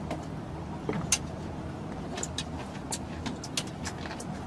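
A boat's motor runs with a steady low drone, with irregular light clicks and taps scattered through it.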